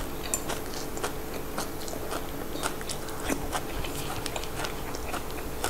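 A person chewing fresh raw fiddlehead fern (phak kut), close to the microphone: a steady run of small, irregular crisp crunches and wet clicks.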